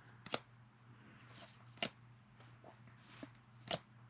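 Paper baseball cards being flipped through by hand, each front card slid off the stack and tucked to the back. Three short sharp card snaps, with soft sliding swishes between them.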